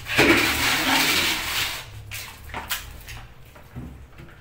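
Water splashing and sloshing in a plastic bucket for about two seconds, then a few knocks as the bucket is handled and set down.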